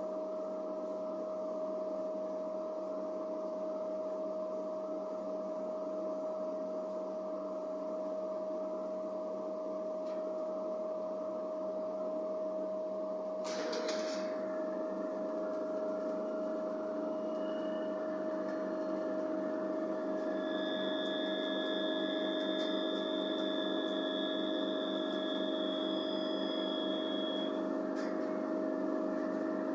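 Interior hum of a 3000/3100 class railcar upgraded to hybrid drive: a steady machine drone with a constant whine. A short hiss comes about halfway through, and a high steady tone sounds for about seven seconds in the second half.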